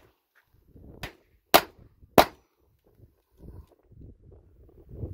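Bruni 8mm blank-firing pistol firing three sharp shots about a second in, roughly half a second apart, the first weaker. Then the firing stops: the pistol has jammed.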